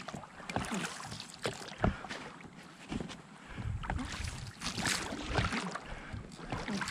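Rowing an inflatable boat: irregular splashes and knocks of the oars in the water and against the hull, over a light hiss of water and wind.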